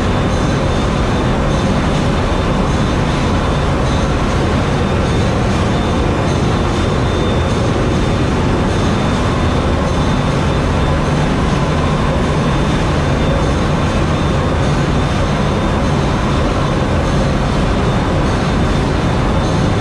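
Loud, steady engine-room din of a container ship's 62,000-horsepower main engine running at sea, with faint steady whines on top.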